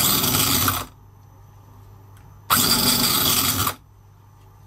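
Toyan Howin V8 model engine being cranked over by its starter in two bursts of about a second each, both cut off abruptly, without the engine catching.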